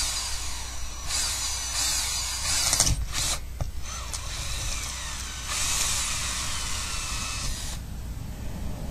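Power drill boring a hole through a house wall to pass a satellite cable, running in two bursts of about two seconds each, with a couple of knocks between them.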